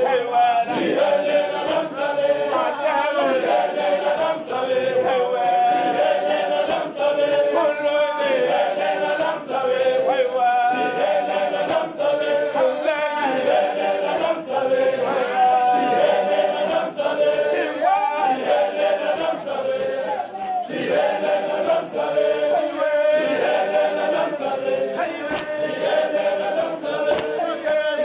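A men's choir singing together, with short sharp beats scattered through the song.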